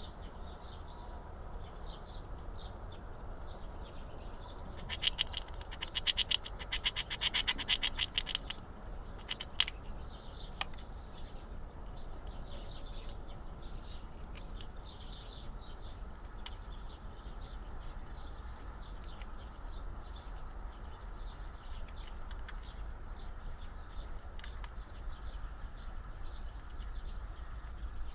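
Red squirrel gnawing through a thick-shelled hazelnut with its incisors: quick scraping rasps of teeth on shell, in a fast dense run from about five to eight seconds in, with a single sharp click near ten seconds, then lighter, scattered gnawing.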